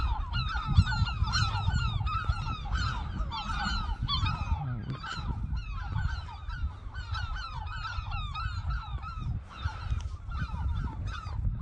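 Seagulls calling nonstop, many short overlapping cries from several birds at once, over a steady low rumble.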